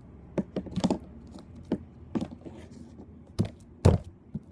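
Sticky purple slime being pulled up off a tabletop and slapped back down on it: a string of irregular sharp slaps and sticky pops, the loudest about four seconds in. The slime is still sticky and clings to the hand.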